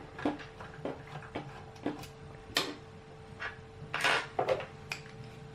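Scattered small metal clicks and taps from a screwdriver working a Phillips screw in the side of a metal mini-PC case, then from the screwdriver and small loose parts being handled on the desk, with a louder cluster of clicks about four seconds in.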